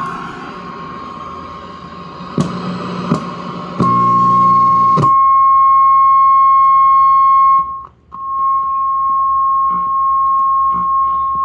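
A steady high test tone, the audio modulation of an RF signal generator played through the tube television's speaker. It starts under a hiss of static with a few clicks; about four seconds in the tone comes up loud and clean as the static stops. It cuts out for a moment near eight seconds, then carries on.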